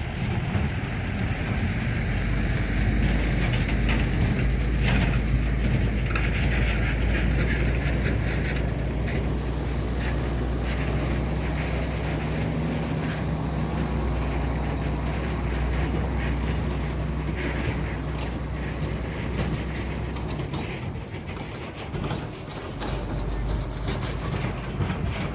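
Excavator's diesel engine running steadily, with scattered light clicks and knocks.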